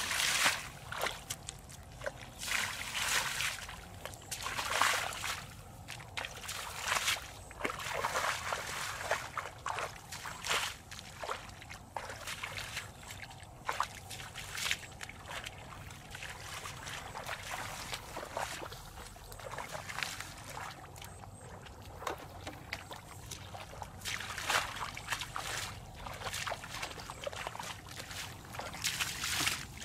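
Feet splashing and sloshing through shallow muddy water in irregular bursts, busiest in the first dozen seconds and again about twenty-four seconds in.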